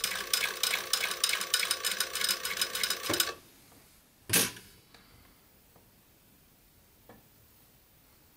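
Juki industrial sewing machine stitching in a fast, even rattle for about three seconds, then stopping. About a second later comes a single sharp clack.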